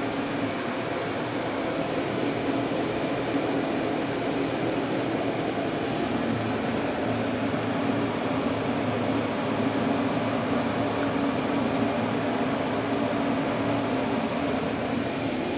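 Gas burner of a steam boiler running steadily at low fire with its main flame established, the burner's blower fan giving an even drone with a low hum.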